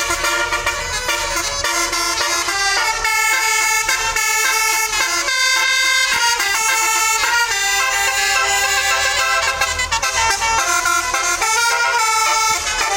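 A tour bus's basuri telolet horn playing a tune: several air-horn trumpets sound together in sustained notes that change from one to the next without a break.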